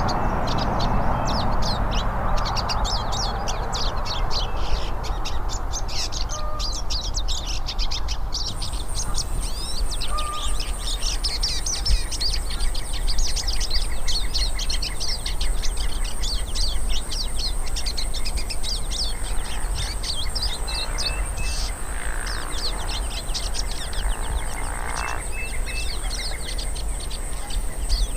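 Several hooded siskins (pintassilgos) singing together in a dense, fast stream of high twittering chirps. About a third of the way in, a steady thin high-pitched whine joins them and stays, over a low background hum.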